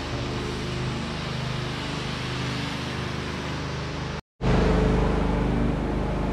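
Steady running noise of a vehicle, with a low, even hum beneath a noisy hiss. It cuts out for a moment about four seconds in and comes back louder.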